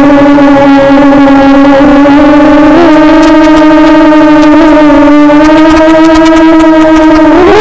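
SRD250 Storm racing quadcopter's motors and propellers whining loudly at one steady pitch, with small wobbles as the throttle shifts slightly.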